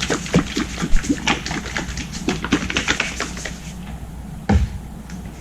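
Plastic bottle of buffing compound being handled, with irregular sharp clicks and knocks, several a second, for almost four seconds, then one dull thump.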